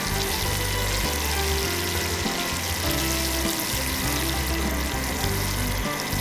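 Background music with held low notes that change every half second or so, over a steady hiss.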